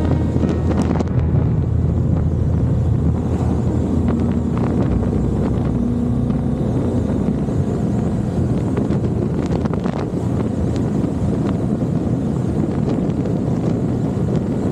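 BMW R 1250 GS boxer-twin motorcycle riding at steady road speed: a low engine drone under heavy wind noise on the microphone.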